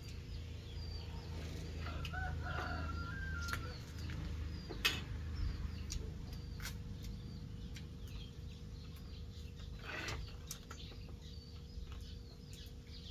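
A rooster crowing once, a held call about two and a half seconds in, with small birds chirping and a couple of sharp knocks later on.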